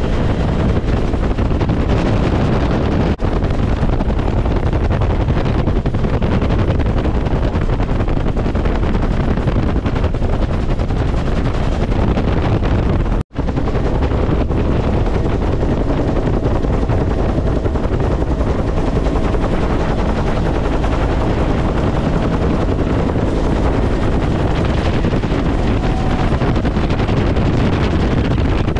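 Bell UH-1 Huey helicopter heard from inside its open-door cabin in flight: loud, steady, rapid blade slap from the two-bladed main rotor over the engine's noise. The sound drops out for a split second about thirteen seconds in.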